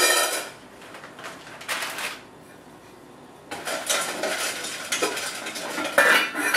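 Stainless-steel double boiler: its metal lid and a spoon clank and knock against the pot in several bursts, with scraping in between as chocolate chips are stirred in it to melt.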